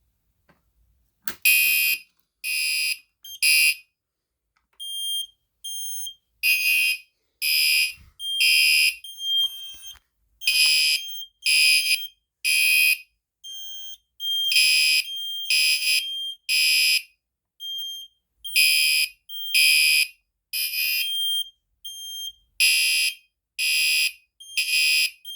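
Fire alarm system activated by key, its alarm sounders going off together about a second in: loud, high-pitched pulsed blasts overlapping with shorter thin beeps, out of step with one another, in an uneven on-off pattern.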